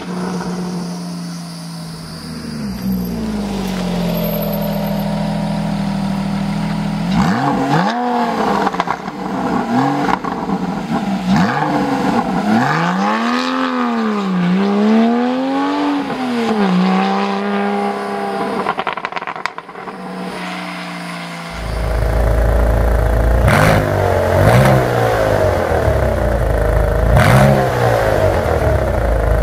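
991 Porsche 911 Carrera S flat-six with an AWE SwitchPath exhaust, running steadily at first, then revved over and over in quick blips that rise and fall in pitch. About 21 seconds in it gives way to a Porsche 996 Turbo with a new valved exhaust, running with a louder, deeper rumble and blipped several times.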